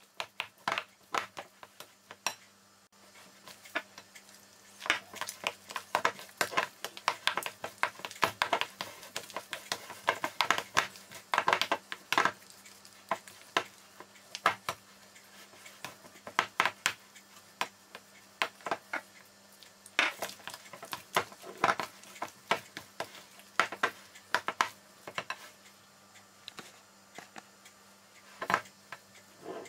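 A spoon stirring mashed potatoes in a bowl, with irregular clicks and scrapes of the spoon against the bowl.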